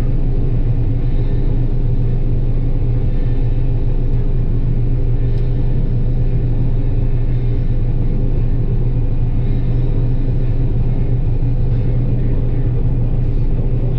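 John Deere 9770 combine running steadily, a constant low drone with steady engine tones that does not change.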